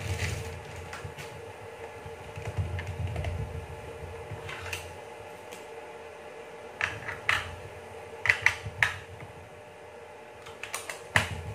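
Small plastic button clicks, in ones and quick clusters, as the karaoke player's menu is stepped through. A faint steady hum sits underneath, and there is a low rumble in the first few seconds.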